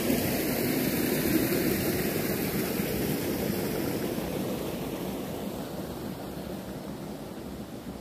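Water pouring from a pipe outlet into a stream: a steady rushing that grows gradually fainter.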